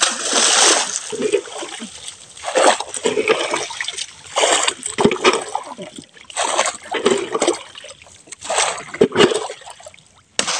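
Repeated splashes of a wooden pole struck down into river water, about one big splash every two seconds, beating the water to drive fish into a trammel net.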